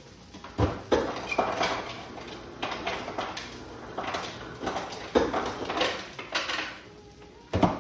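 Kitchen clatter: about ten irregular knocks, clinks and scrapes of utensils and containers, roughly one every half-second to a second.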